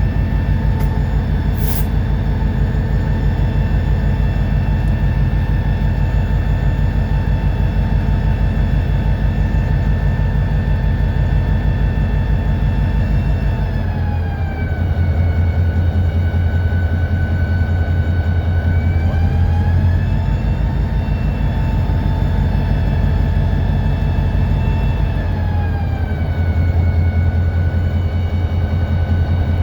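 EMD SD40-2 locomotive's 16-cylinder turbocharged two-stroke diesel heard from inside the cab, throbbing steadily under load as it moves a cut of cars. The engine ramps with the throttle: its whine drops in pitch about halfway through, climbs back a few seconds later, and drops again near the end. A single sharp click sounds about two seconds in.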